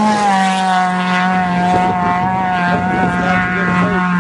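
Off-road race buggy engines running at steady high revs, a droning engine note that holds nearly the same pitch, with a second engine note wavering faintly toward the end.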